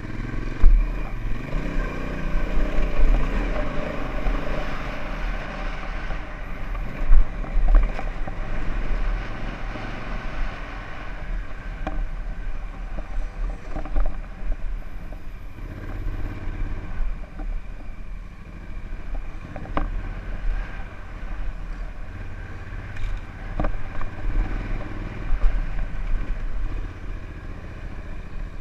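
Honda Africa Twin's parallel-twin engine running under way on a dirt trail, pitch rising and falling with the throttle, over a heavy low rumble. A few sharp knocks come through at intervals.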